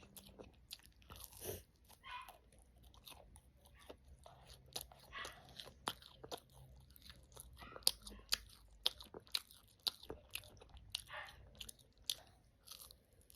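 A person chewing and biting into chicken nuggets close to the microphone: many small, irregular crunches and wet mouth clicks.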